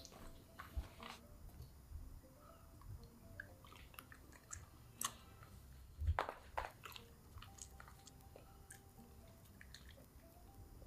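Close-up chewing and biting of KFC crispy fried chicken, with irregular crunches and wet mouth sounds. The loudest crunches come about five and six seconds in.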